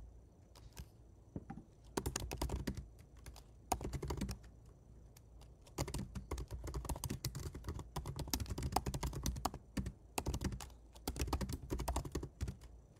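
Typing on a computer keyboard: several bursts of quick key clicks separated by short pauses.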